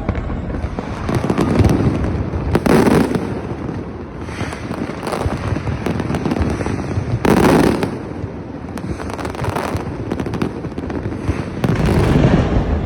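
Fireworks display: shells bursting with dense crackling throughout, and bigger booming bursts about three seconds in, midway, and near the end.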